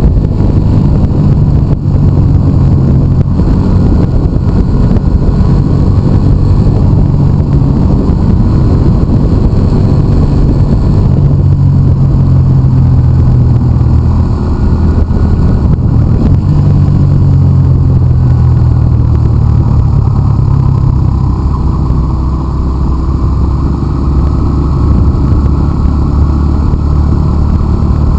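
Motorcycle engine running at low road speed, with tyre noise on a wet road. The engine note steps lower about twenty seconds in as it slows.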